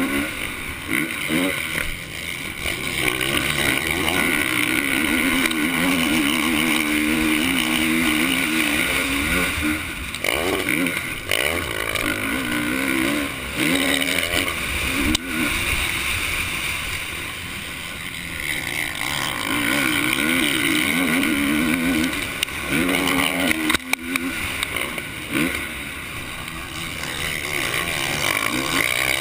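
450-class motocross bike engine racing at full throttle, its pitch climbing and falling again and again through gear changes and throttle chops. It is heard close up from a camera on the bike, with a few sharp knocks.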